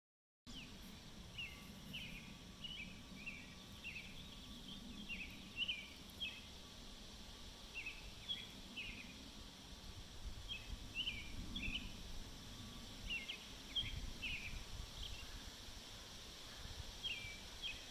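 Faint outdoor ambience with a small bird chirping over and over, short high notes in quick little groups, over a low steady background rumble.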